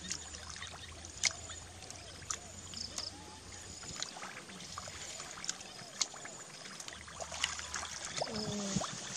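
Wet mud squelching and shallow water sloshing as hands dig into the mud and legs wade through it, with many short sharp squelches and splashes.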